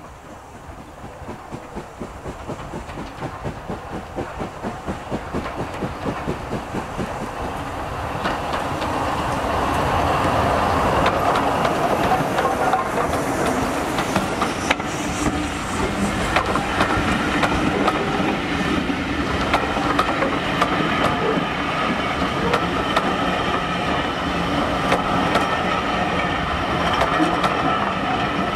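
An LNER B12 4-6-0 steam locomotive works a passenger train past close by. Its exhaust beats, about two a second, grow louder over the first several seconds as it approaches. From about ten seconds in, the coaches roll past loudly, their wheels clicking over the rail joints.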